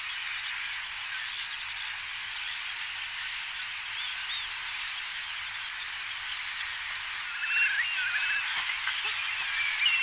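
A dense chorus of many birds' high chirps and twitters, with a few louder, clearer calls from about seven and a half seconds in.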